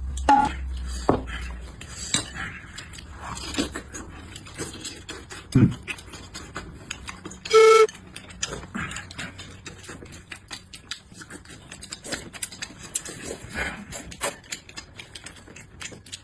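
Utensils and dishes clinking: scattered light clicks and knocks, with one short, loud pitched tone a little before the middle.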